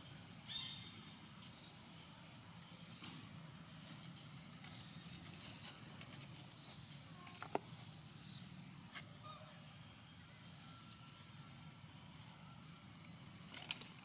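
Quiet forest ambience: a high, rising chirp repeated about once a second over a low steady background, with a few faint sharp clicks.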